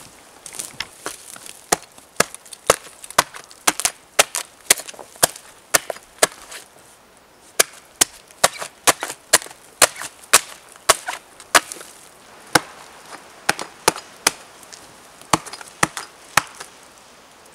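Hatchet chopping into a fallen dead birch log: a run of sharp strikes about two a second, with a short pause partway through.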